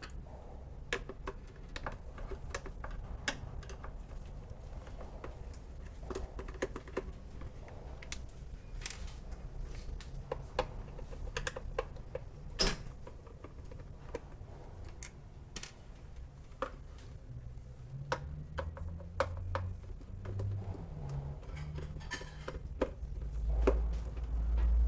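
Scattered small clicks and taps of a screwdriver and screws on a range hood's motor housing as the screws are taken out, over a low hum. A louder low rumble of handling comes near the end.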